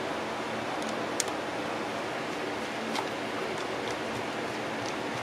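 Steady background hiss with a few small, faint clicks from parts being handled and a double-ended nut being fitted into a Singer 306K sewing machine motor housing. The sharpest click comes about a second in.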